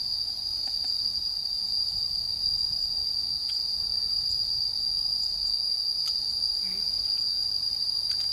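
Insects in the surrounding trees and grass giving one steady, unbroken high-pitched buzz, with a few faint taps now and then.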